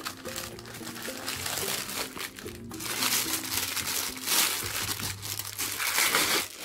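Thin plastic bag crinkling as a handheld wireless microphone is worked out of it. The crinkling is lighter at first, loudest in the second half, and stops just before the end.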